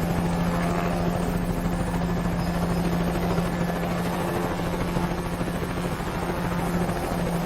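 Helicopter sound effect: a helicopter's rotor and engine running steadily, a continuous low hum with a fast chopping flutter.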